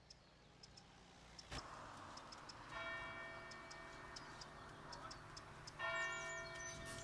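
A church bell struck twice, about three seconds apart, each stroke ringing on and slowly fading. A single sharp knock sounds about a second and a half in, and small birds chirp near the end.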